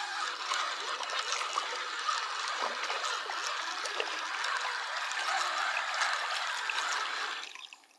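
Shallow river water running and trickling steadily over a riffle, fading out near the end.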